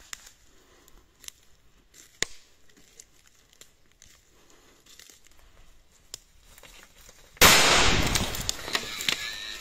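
Faint crunches and snaps of dry leaf litter and twigs, then a little over seven seconds in a single sudden loud gunshot at a wild boar, ringing away over about two seconds.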